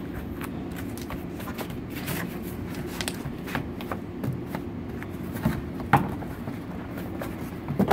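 Cardboard display panels being creased and folded by hand: scattered crackles and light taps of bending card, with one sharper snap about six seconds in, over a steady low hum.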